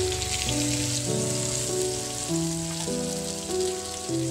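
Spice-marinated fish shallow-frying in hot coconut oil in a pan: a steady crackling sizzle. Instrumental background music plays over it, with held notes changing about every half second.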